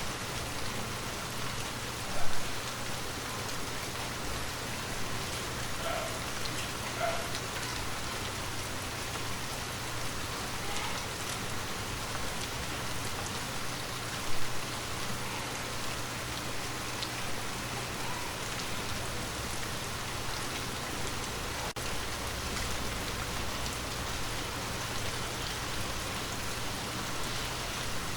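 Steady rain falling and pattering on a surface, with two brief louder hits, one about two seconds in and one about halfway through.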